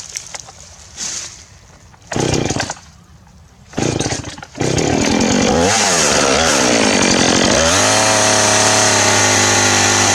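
Two-stroke chainsaw starting: two short sputters, then it catches about four and a half seconds in, revs up and down, and settles into running at a steady pitch.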